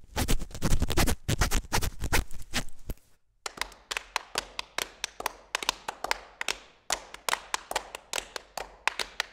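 Trousers being pulled on and handled: about three seconds of dense, scratchy rustling, then after a short gap a long run of separate sharp taps or clicks, roughly three a second.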